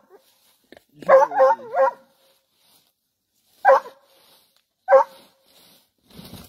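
Hunting dogs barking and yelping at quarry holed up in a burrow: a quick run of four yelps about a second in, then two single yelps.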